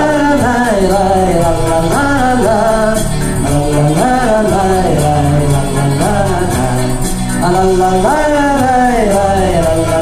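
Russian folk-style pop song playing through PA speakers during an instrumental break between sung verses: a lively gliding melody over a backing track with jingling percussion.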